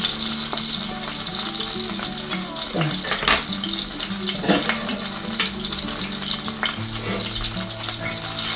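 Chicken-breast and zucchini patties frying in hot oil in a skillet, sizzling and crackling steadily, with a few light clicks.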